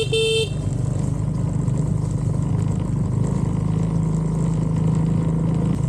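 Small 125cc motorbike engine running steadily, with a short beep of about half a second at the very start.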